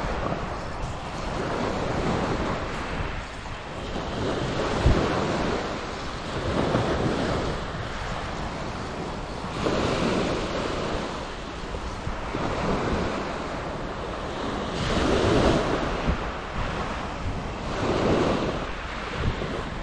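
Small sea waves breaking and washing up a shingle beach, surging every two to three seconds, with wind buffeting the microphone.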